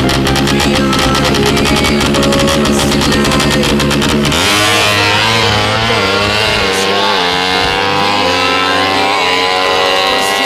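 Music with a steady beat, then about four seconds in a Suzuki Satria FU drag bike's ported single-cylinder four-stroke engine, running through a JRM exhaust, takes over. It revs with its pitch swinging up and down, then climbs steadily.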